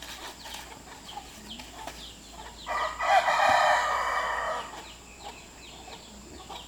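A rooster crowing once, one loud call of about two seconds starting near the middle, with faint short high chirps around it.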